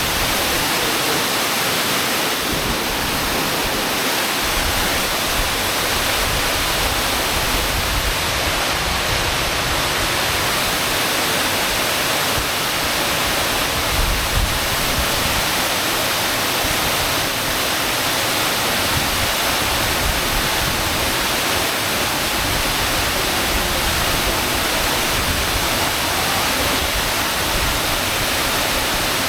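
Loud, steady rush of a waterfall pouring into a cave, an unbroken roar of falling water.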